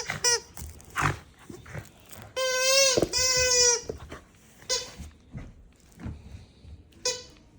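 Rubber squeaky dog toy squeaking as a doodle puppy bites it. There is a short squeak at the start, two long ones about two and a half and three seconds in, and shorter squeaks near five seconds and near the end, with light knocks in between.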